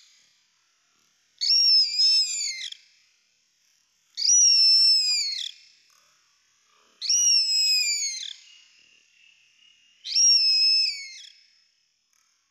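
Red kite calling: four drawn-out, high whistling calls about three seconds apart, each rising and then falling away at the end.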